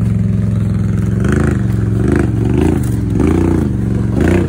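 A vehicle engine revving up and down again and again, its pitch rising and falling five or six times, as the vehicle works to push through deep sawdust.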